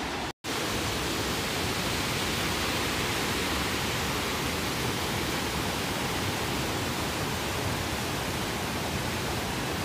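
Mountain stream of the Studený potok waterfalls cascading over rock slabs: a steady rush of white water, cut by a brief dropout about half a second in.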